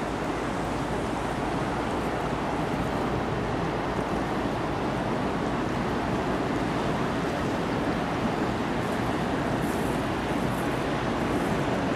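Steady rush of wind and water along the shore, with the low rumble of a passing lake freighter mixed in.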